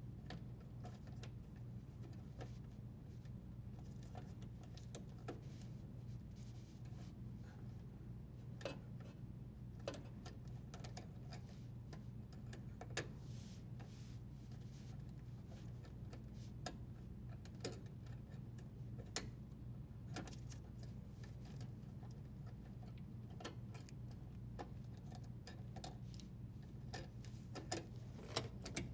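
Faint, scattered clicks and small knocks from plastic wire nuts being untwisted and the dishwasher's power wires being handled at the junction box. A steady low hum runs underneath.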